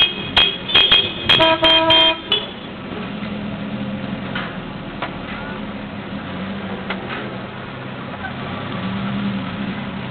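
Citroën Traction Avant arriving: a quick run of about seven short horn toots in the first two seconds or so, then the car's engine running slowly and steadily as it rolls in.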